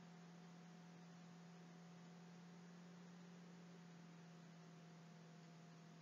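Near silence: a faint, steady electrical hum with light hiss from the recording's background noise.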